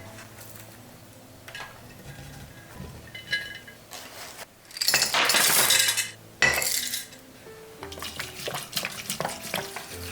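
Kitchen dishes and utensils clinking and knocking, with a loud rushing sound of about a second and a half in the middle, a shorter one just after, and a quick run of small clinks near the end. Soft background music plays underneath.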